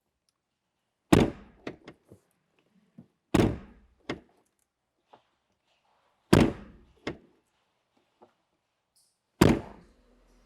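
A90 Toyota Supra door latching shut with a heavy thunk four times, about every two to three seconds, each thunk followed by a couple of lighter latch clicks, as the newly installed motorsport door release is tested.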